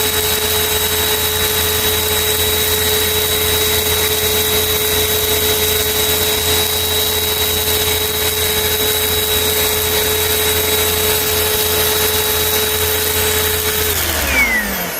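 Cyclone-type vacuum cleaner running with a steady whine over a rush of air, then switched off about fourteen seconds in, its motor pitch falling as it spins down.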